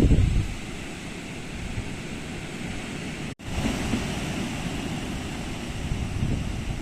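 Typhoon wind blowing hard, a gust buffeting the microphone with a deep rumble at the start and a steady rushing for the rest. The sound cuts out for an instant about halfway through.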